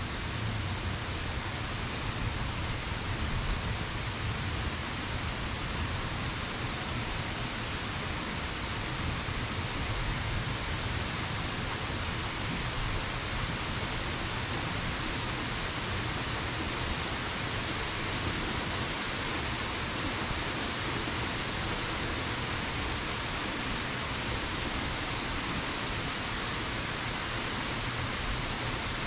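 Steady rain falling, an even hiss of many drops with no break or change.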